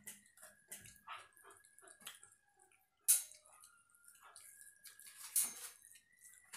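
Hands squishing and mixing watery panta bhat (soaked rice) on steel plates, with short wet clicks and mouth smacks of eating, two of them louder about three and five seconds in. A faint steady high tone runs underneath.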